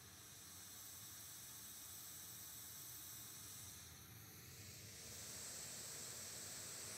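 Faint hiss of a test noise signal played from a small handheld speaker as it is moved around a shotgun microphone, heard off the microphone's axis in a polar-pattern rejection test. The hiss dips about four seconds in and grows louder near the end.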